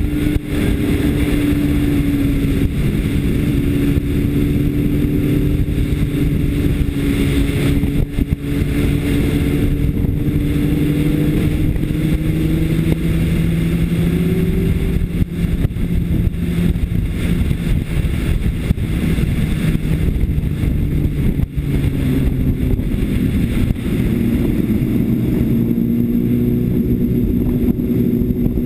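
2005 Honda CBR600RR's inline-four engine running hard at track speed, with wind rush. The engine note climbs slowly and dips briefly a few times as the throttle is eased between pulls.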